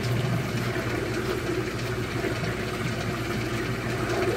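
Steady churning and sloshing of liquid slurry in a plastic barrel, stirred by a motor-driven agitator shaft and bubbled with air. A low hum from the drive weakens about half a second in.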